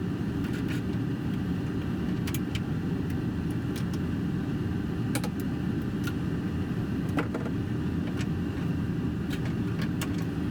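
Water heater tank draining, a steady low rush of water with scattered faint clicks, flowing freely now that the top water lines are loosened to let air into the tank.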